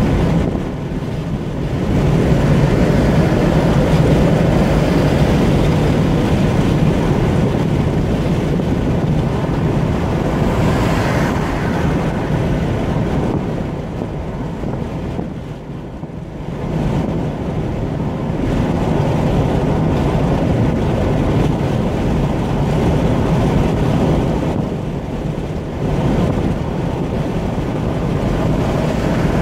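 Steady road noise of a car cruising at motorway speed, heard from inside the cabin: tyre roar on the asphalt mixed with wind, dipping briefly about halfway through.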